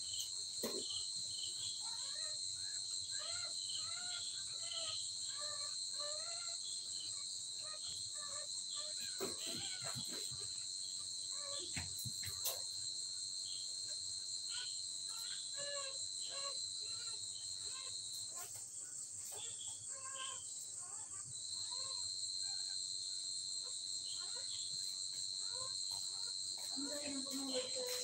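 Repeated short, high squeals and whimpers of newborn Labrador puppies, over a steady shrill insect chorus whose high tone breaks off for a few seconds about two-thirds of the way through.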